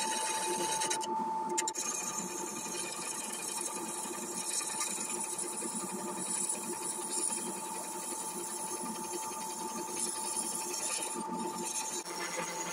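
Wood lathe running with a steady whine while a turning tool cuts a spinning poplar blank, shaving off wood.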